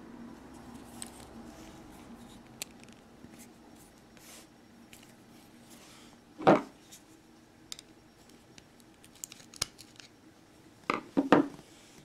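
Small metallic clicks and scrapes of a flat-blade screwdriver prying at the retaining clip of a VW Golf Mk4 door lock cylinder, with one sharp click about halfway through and a quick run of loud clicks near the end.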